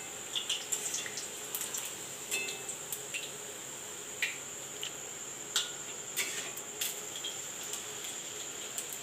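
Luchi deep-frying in hot oil in an aluminium karahi, with a metal slotted spatula clicking and scraping against the pan a dozen or so times as the breads are turned and lifted.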